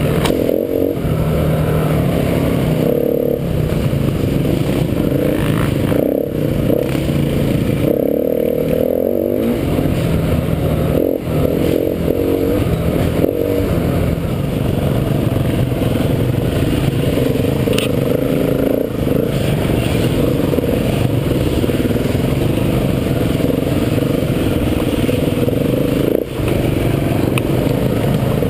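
KTM 350 EXC-F dirt bike's single-cylinder four-stroke engine being ridden off-road, revving up and down continuously as the throttle is worked, with a brief drop in level about two-thirds of the way through and again near the end.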